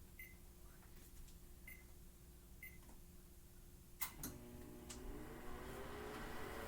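Microwave oven keypad beeping three times as the time is entered, then a click about four seconds in and the oven starts running with a low hum that rises in pitch as its fan and turntable motor come up to speed.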